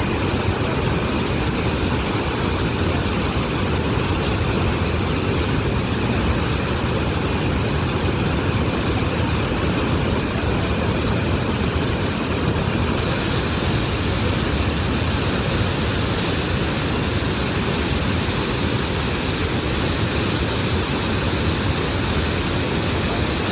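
Waterfall rushing: a loud, steady wash of falling water, its hiss growing brighter about halfway through.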